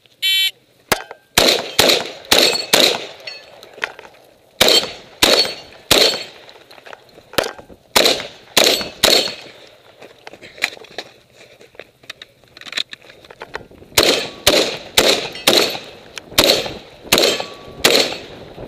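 A shot-timer start beep, then a Saiga 12 semi-automatic shotgun fires about twenty rapid shots in strings. The strings are broken by pauses of a second or two for reloading or moving between targets.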